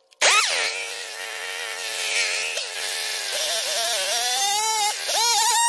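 Stihl chainsaw engine catching abruptly and running, then revved up so that its pitch climbs from about three seconds in, with a brief dip and recovery near the end.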